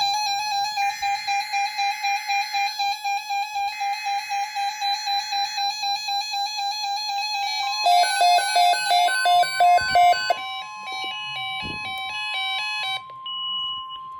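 NOAA Weather Radio alert activation for a tornado watch. The SAME header data bursts sound over a fast-pulsing electronic beep, about four pulses a second. About eight seconds in, the steady 1050 Hz warning alarm tone begins, with a stepping run of electronic tones over it for about five seconds.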